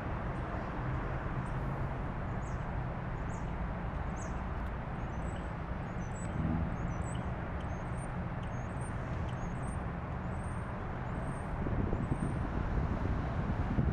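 A steady low outdoor rumble, with faint, short high chirps repeating through the middle of it.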